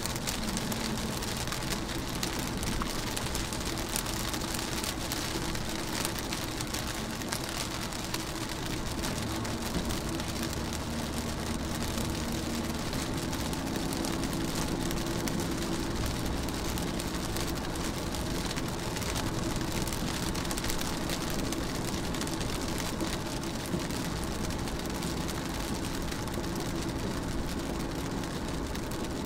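Rain falling steadily on a car's windshield and body, heard from inside the car, with many separate drop ticks over an even hiss. A faint low steady hum runs underneath.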